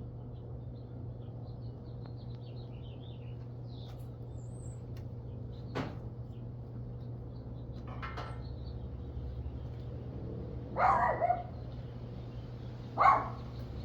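Portable generator engine running steadily as a low, even hum. A dog barks a few times over it in the second half, the loudest barks near the end, with faint bird chirps early on.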